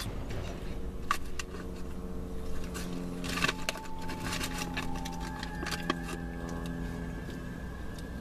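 Rustling, clicking and rattling of a food container being handled inside a car cabin, busiest between about three and six seconds in, over a steady low hum.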